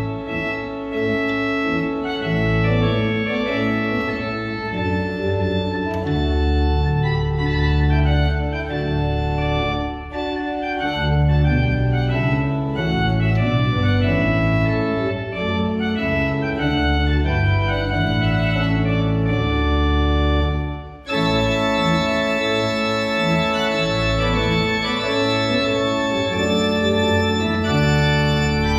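Church organ playing a stately festive piece on manuals and pedals, with sustained chords over a strong pedal bass. There is a brief break about 21 s in, after which the sound comes back brighter and fuller.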